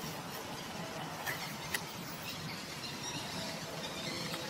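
Steady outdoor background noise with faint bird chirps in the second half and two light clicks about a second and a half in.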